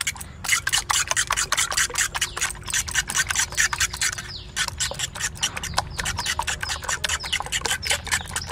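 Steel fork beating raw eggs in a bowl, in rapid strokes several times a second, scraping and clicking against the bowl's sides.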